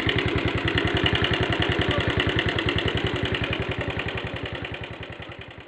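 Motorcycle engine idling with a steady, rapid, even beat, fading away near the end. It is running the bike's generator, which powers the newly wired USB phone charger.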